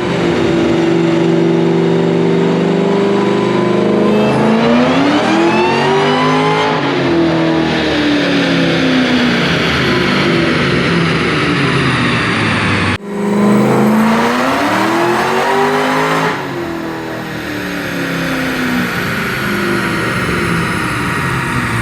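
Whipple-supercharged, cammed 5.4-litre DOHC V8 of a Shelby Mustang running on a chassis dyno for a pull. It runs steadily for about four seconds, then its pitch climbs for a couple of seconds and falls back; after a sudden break about 13 seconds in, it climbs and falls once more.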